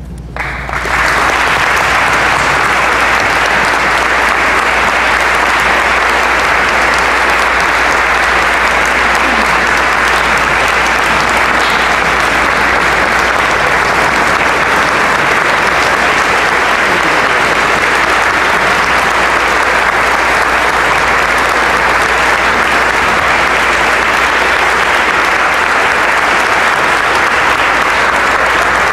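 A large audience applauding steadily, the clapping starting about a second in and holding at an even level.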